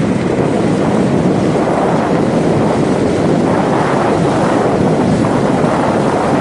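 Steady rush of wind on the microphone and water churning along the hull of a longtail boat under way.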